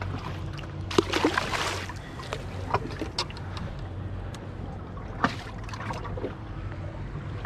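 Handling noise aboard a small fishing boat over a low steady hum. A brief rush of noise comes about a second in, followed by scattered clicks and one sharp knock a little past five seconds.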